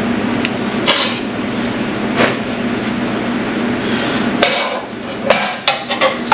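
Metal hand tools clanking: a series of separate sharp metallic knocks and clinks, the loudest about four and a half seconds in, over a steady low hum.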